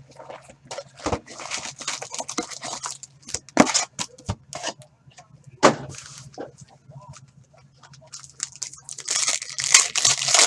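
Sports card box and foil packs being torn open and handled: ripping and crinkling of wrappers in two longer spells, one early and one near the end, with many sharp clicks and taps of cardboard in between.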